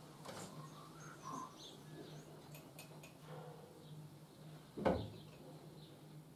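Faint handling noises of small hand tools: light clicks and squeaks, with one sharp knock just before five seconds in, over a low steady hum.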